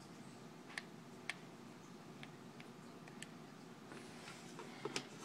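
Faint single clicks from the buttons of a Wii Nunchuk used as a computer mouse, a handful spaced irregularly about a second apart. A sudden loud thump comes right at the end.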